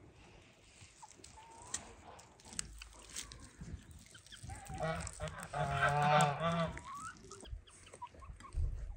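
A drawn-out call from farmyard poultry, about two seconds long, near the middle, over quieter yard sounds with a few scattered clicks.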